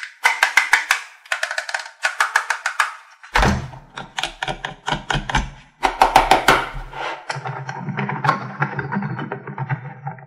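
Rapid plastic clicking and rattling from a toy play-dough extruder as its hand crank is turned and its plastic parts are handled, in short bursts at first and then longer runs with some heavier knocks around the middle.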